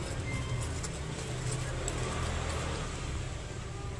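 Rubber caseback-opener ball pressed and twisted against a stainless steel watch caseback to unscrew it: light handling rubs and a few faint clicks over a steady low rumble.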